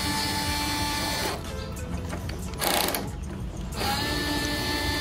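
Small cordless electric screwdriver running, a steady whine that rises in pitch as it spins up, as it backs out the screws holding an ASIC miner's hashboard brackets. It stops about a second in and starts again near the end, with a brief noisy burst between the two runs.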